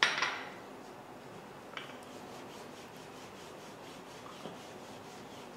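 Wooden rolling pin rolling out dough on a floured countertop. A loud rasping rub right at the start fades within half a second, then faint rubbing follows with two soft knocks.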